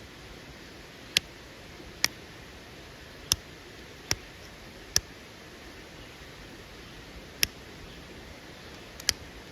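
Antler flaker pressure-flaking the edge of a quartzite flake: about eight sharp, high clicks at irregular intervals as small flakes pop off, the last two close together near the end.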